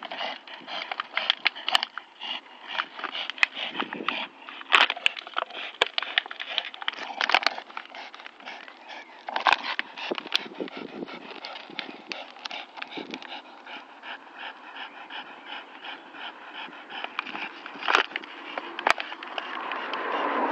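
Two Staffordshire bull terriers and a Patterdale terrier panting as they tug and chew a plastic bottle between them, with the plastic crackling sharply again and again.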